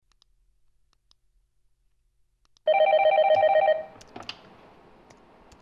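Telephone ringing: a single electronic warbling ring lasting about a second, starting a little under three seconds in and stopping abruptly, followed by a few light clicks.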